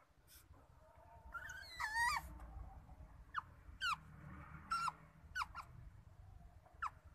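Newborn otter pups squeaking while suckling: one warbling squeak about two seconds in, then a string of short, high squeaks that drop in pitch, a second or less apart.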